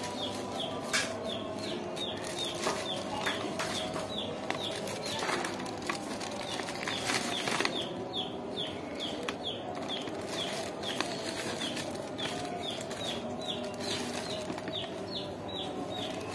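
Small birds chirping in quick, repeated short high notes that fall in pitch, with occasional crackles of a plastic bag being handled.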